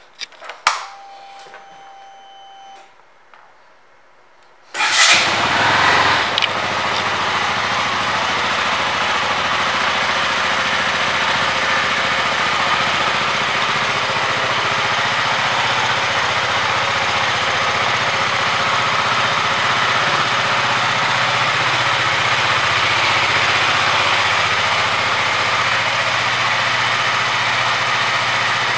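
A KTM 200 Duke's single-cylinder four-stroke engine is started about five seconds in, revs up briefly, then settles into a steady idle.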